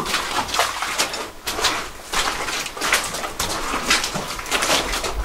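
Footsteps walking along a mine tunnel floor: an irregular run of scuffs and crunches, two or three steps a second.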